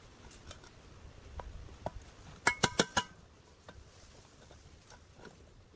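Rusty steel housing of an old industrial fan motor being handled during disassembly. Faint scattered clicks, then a quick run of four or five sharp, ringing metallic clinks about halfway through.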